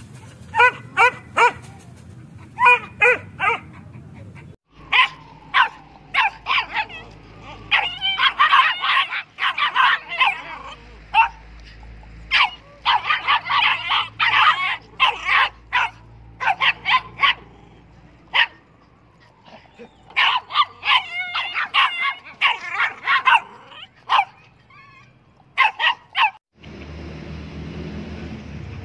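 Dogs barking in quick repeated volleys, some barks high and yelping. The barking breaks off suddenly twice, and near the end it gives way to a steady rumbling background noise.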